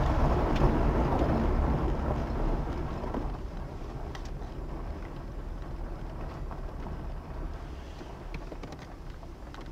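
Car tyres rolling over a gravel road with a low rumble, heard from inside the cabin, getting quieter as the car slows to a crawl, with a few small ticks of stones.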